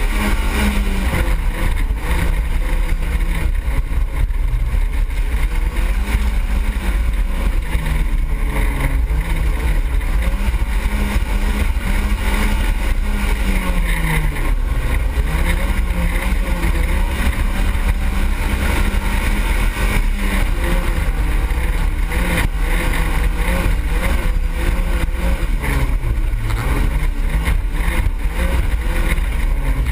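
Autocross race car's engine heard from inside the cabin under hard driving, its revs climbing and dropping again and again with gear changes and corners, over a constant heavy low rumble.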